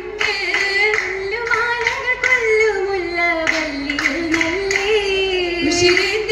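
Oppana song: a chorus of female voices singing a Mappila melody together, kept in time by the group's rhythmic hand clapping.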